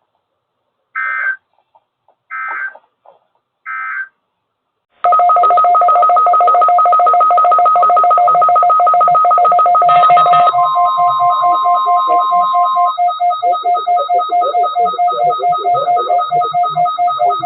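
Emergency Alert System signalling on a weather radio broadcast: three short data bursts about a second and a half apart, then a loud steady two-note electronic alert tone with a fast pulsing. About ten seconds in, a single higher steady tone joins it for a few seconds.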